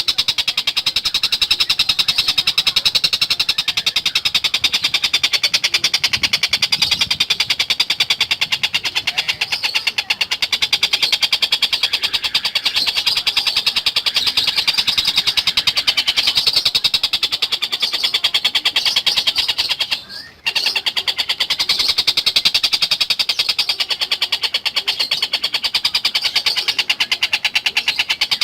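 Tengkek buto bird singing a fast, continuous rattling trill of rapidly repeated high notes, with one brief break about twenty seconds in.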